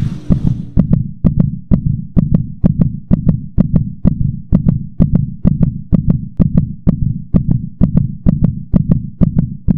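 Heartbeat-like bass pulse in a promo soundtrack, about three beats a second, each beat carrying a sharp click.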